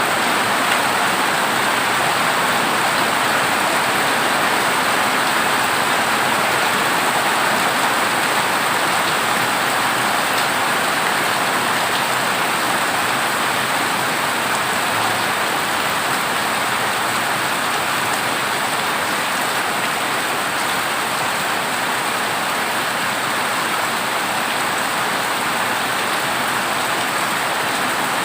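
Heavy rain falling on a corrugated zinc (tin) roof: a dense, steady rush with no breaks or thunderclaps.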